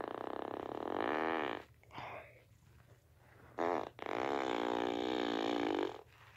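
A series of long, pitched fart sounds with a wavering pitch: one running into the first second and a half, a short faint one about two seconds in, then a brief blip followed by a long one of about two seconds near the end.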